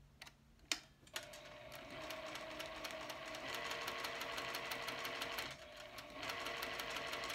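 Juki sewing machine stitching a seam through fabric: a couple of clicks, then the machine runs steadily from about a second in, with a short pause about two-thirds of the way through before it starts again.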